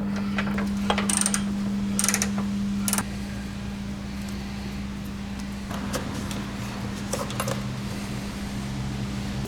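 Hand tools clicking and knocking against metal parts during work on a car's engine bay, over a steady low hum that gets quieter about three seconds in.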